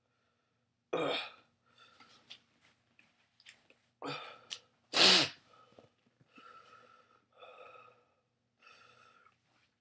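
A man's sharp, loud bursts of breath, three of them, the loudest about five seconds in, followed by quieter breaths blown out through pursed lips: his reaction to a mouth and throat burning from a super-hot chili pepper.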